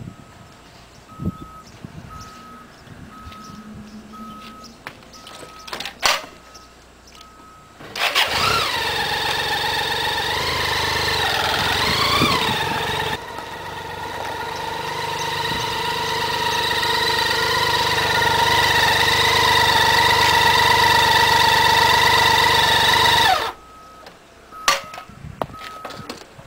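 A 1987 BMW K75's inline three-cylinder engine starts about a third of the way in and is revved up and down for a few seconds. It then runs on with a steady note that slowly grows louder before cutting off abruptly near the end. In the quiet stretch before the start, a faint beep repeats.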